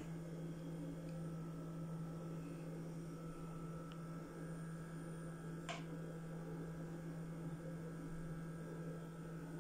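Steady low electrical hum with one short, light click a little past halfway.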